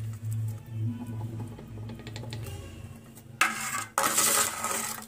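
A steel spoon scraping and clinking against a stainless steel bowl as ground spice paste is scooped out, with a louder scraping rustle for about a second and a half near the end.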